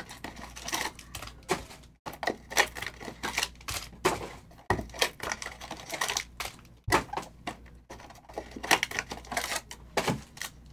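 Plastic wrapping and foil card packs crinkling and crackling in irregular bursts as trading card boxes are unwrapped and opened by hand, with cardboard box handling.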